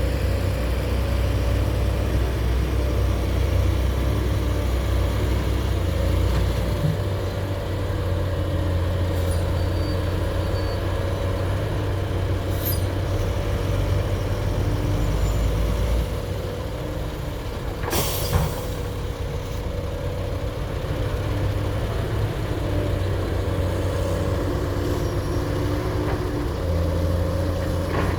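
Hydraulic excavator's diesel engine running under changing load, its low drone dropping and rising a few times, with one sharp knock about two-thirds of the way through.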